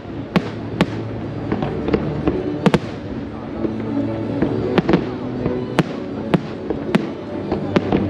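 Aerial firework shells bursting overhead: about a dozen sharp bangs at irregular intervals, some in quick pairs, with steady background music underneath.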